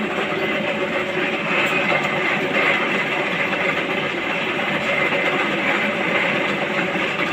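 A large steel disc spinning on a pillar drill converted into a lathe, with a hand-held cutting bar scraping its face: a steady metallic scraping and ringing screech over the drill's motor.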